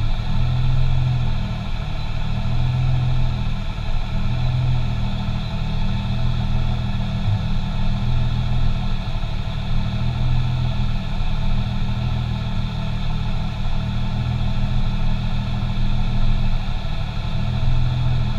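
Toyota 2JZ straight-six with a T78 turbo in a Nissan Silvia S15 idling, heard from inside the cabin; the note stays level with small swells and dips, without revving.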